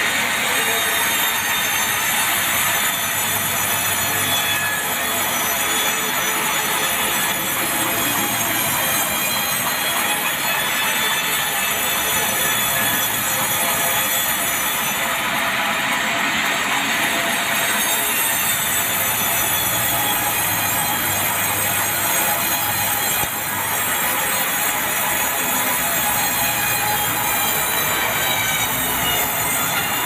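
Sawmill saw cutting lengthwise through a red meranti log: a loud, steady whining screech that carries on unbroken.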